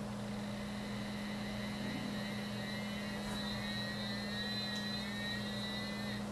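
Ear point-finder probe held on the ear giving a steady high electronic tone that lasts about six seconds and cuts off suddenly near the end, over a low steady electrical hum.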